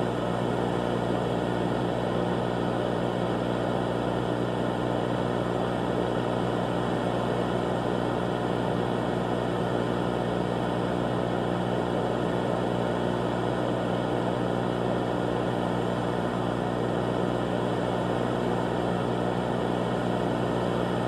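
A steady, unchanging low droning hum layered with hiss, with no breaks or changes in pitch.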